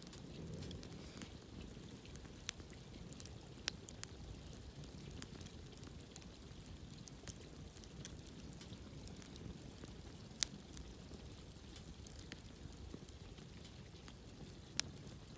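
Wood campfire crackling: irregular sharp pops and snaps over a low, steady rumble of the flames, with two louder pops about ten seconds in and near the end.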